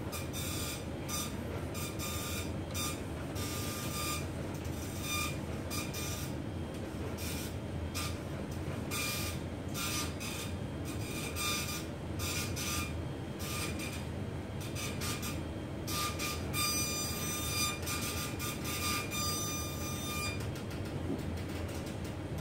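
Electric baby swing cradle rocking on its fourth speed setting under a 6 kg load: a steady motor hum with repeated short squeaking bursts from the swing mechanism.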